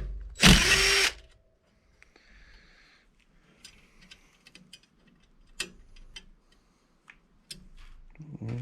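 A power tool runs in one short burst of about half a second, followed by scattered metallic clicks and taps of tools and bike parts being handled, during work on a bicycle's pedals and cranks.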